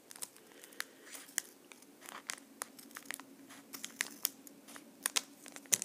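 Scissors cutting along the top of a foil Pokémon card booster-pack wrapper in a run of short, irregular snips, with the foil crinkling as it is handled.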